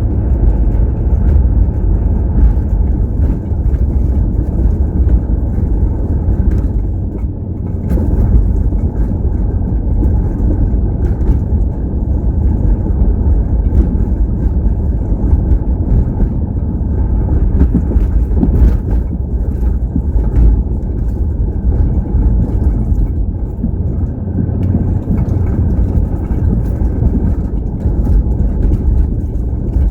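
Steady low rumble of a motor vehicle on the move, with a few faint clicks.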